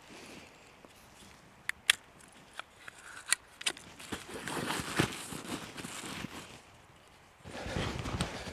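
A handful of sharp clicks as a small hatchet's blade cover is pulled off and handled, then rustling of gear at a backpack. Near the end, boots crunching through deep snow.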